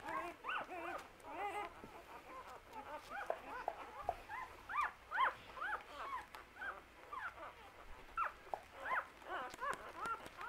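Five-day-old English setter puppies squeaking and whimpering: a steady stream of short, high, rising-and-falling cries, a few a second, sometimes overlapping.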